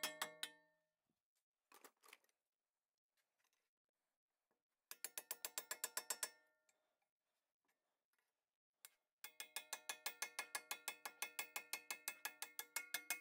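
Steel tools striking a rusted-in front wheel hub/bearing assembly, driving it off the spindle without a press. It is sharp metal-on-metal hits with ringing: one loud hit at the start, then fast runs of about ten hits a second, a short run near the middle and a long run through the last few seconds.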